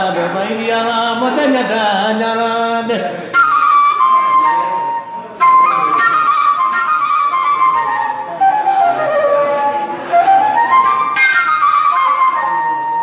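A man's voice sings a wavering phrase for about three seconds, then an end-blown flute takes over with a high melody of held notes and falling slides, ending on a long held note.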